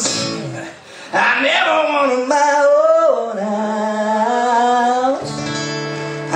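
A man singing a song while strumming a guitar. The voice drops out about five seconds in, leaving a guitar chord ringing on its own.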